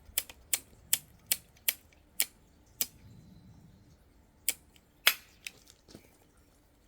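A run of sharp mechanical clicks, about two or three a second for the first few seconds, then a few scattered clicks with one louder click about five seconds in.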